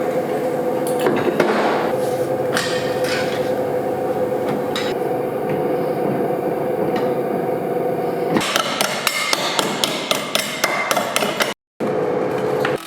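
Metal bodywork on a car's sheet-metal quarter panel: a steady machine noise with a held tone, then, about eight seconds in, a fast run of hammer-like strikes on metal, about six a second, for about three seconds.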